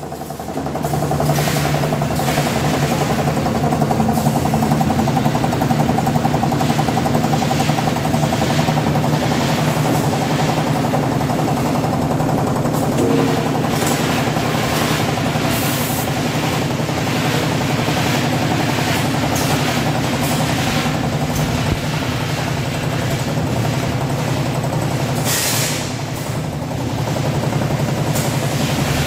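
Automatic nut vacuum brick-bag packing line running: a steady machine hum with irregular clatter and a few short hisses of air, the longest about 25 seconds in.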